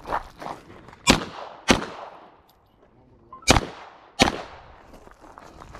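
Four gunshots in two pairs, each pair about half a second apart, with a gap of nearly two seconds between the pairs. Each crack dies away in a short echo.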